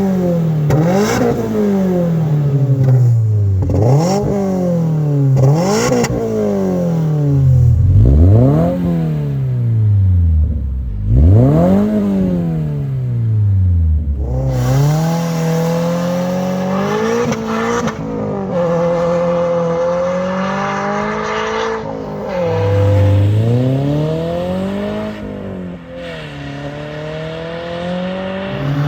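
Exhaust of a 2022+ Subaru BRZ / Toyota GR86's 2.4-litre flat-four boxer engine being revved. For the first several seconds quick revs rise and fall back about every two seconds, then come a few longer revs. From about halfway the note holds steadier, with slower rises and dips.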